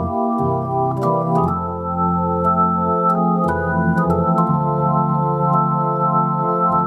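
Yamaha PSR-750 keyboard playing a Hammond B-3 style drawbar organ voice: sustained organ chords that change every second or two, with lower bass notes coming and going underneath. A short click sounds at some note starts.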